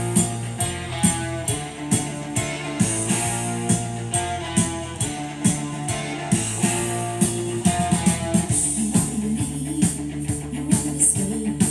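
Rock music with guitar and a steady beat, played from a vinyl record on a Technics SL-QD3 direct-drive turntable.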